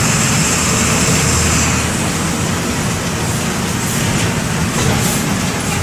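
MWM 6.12 TCE turbodiesel inline six-cylinder engine of a Volksbus 17-230 EOD bus running steadily while the bus is under way. A high hiss above the engine note fades about two seconds in, and the overall level eases slightly.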